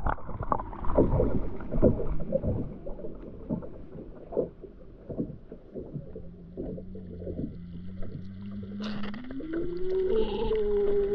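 Underwater sound picked up by a submerged action camera: irregular knocks and bumps for the first several seconds, then a boat motor's steady hum carried through the water, which rises to a higher whine about nine seconds in.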